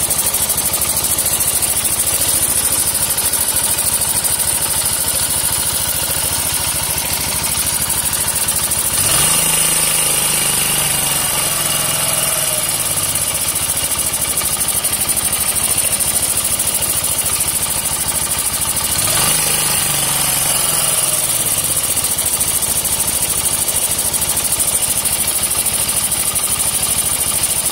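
Honda TL125's single-cylinder four-stroke engine idling with a steady rapid ticking, an abnormal noise of unknown cause. The throttle is blipped twice, about nine and nineteen seconds in, the revs rising and then falling back to idle.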